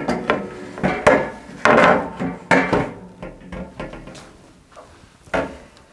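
Loose shelf boards knocking and scraping as they are set into a shelf unit's frame. A quick run of knocks comes first, then a single knock near the end.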